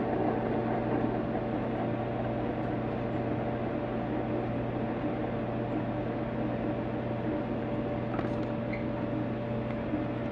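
Steady low hum with a few held tones over a soft hiss, unchanging throughout.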